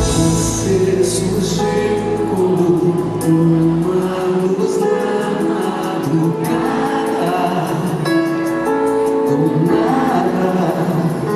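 Live band music with singing, a song being performed in concert.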